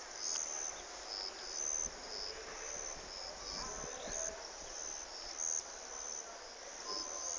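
Insects chirping: short, high-pitched chirps repeating irregularly over faint background noise.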